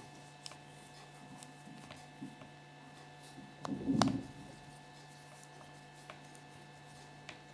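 Light scattered clicks, then a short rustling clatter about four seconds in, as small plastic toys are handled on a table, over a steady low hum.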